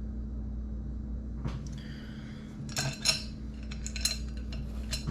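Metal tool and valve-train parts clinking and clicking as a valve spring compressor is moved and set on a 3800 cylinder head, with a few sharp clinks in the second half over a steady low hum.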